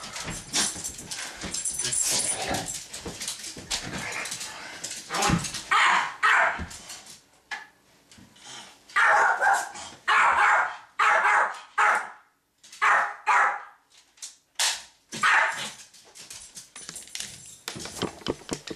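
Dog barking repeatedly, about ten sharp barks in short clusters, loudest through the middle stretch.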